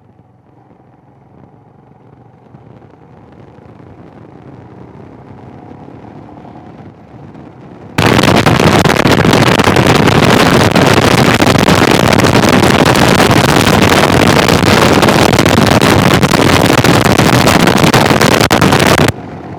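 Motorcycle ride recorded on a Sena 10C Evo headset: faint engine and road noise that slowly rises, then a sudden, very loud blast of wind noise on the microphone for about eleven seconds, cutting off abruptly near the end. The blast happens when Garmin GPS instructions mute the helmet microphone and the small unshielded microphone on the Sena unit opens fully to the wind.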